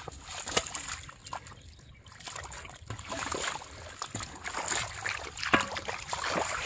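Shallow, muddy floodwater splashing and sloshing in a run of short, irregular splashes as feet run through it and bare hands grab at a fish in the water.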